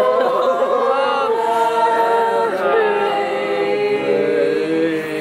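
A group of voices singing together without accompaniment, long held notes in a slow song.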